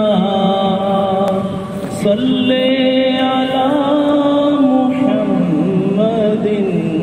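Wordless, chant-like vocal opening of an Urdu naat: a voice holds long notes that slide slowly between pitches over a steady low hum.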